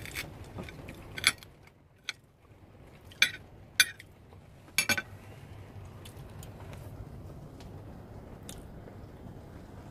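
Cutlery and a plate being handled beside a frying pan: several sharp clinks over the first five seconds, the loudest a quick double clink near the end of them, then only a low steady hum.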